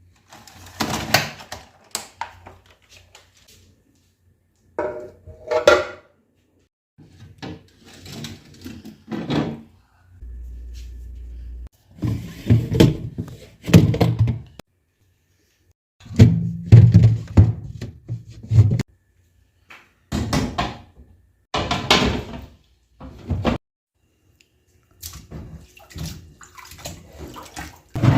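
A string of short, separate kitchen handling sounds from cleaning and arranging a fridge: knocks, clatters and washing sounds, each cut off into dead silence. About ten seconds in there is a brief low hum.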